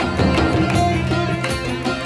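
Background instrumental music in an Indian classical style, led by a plucked string instrument such as a sitar.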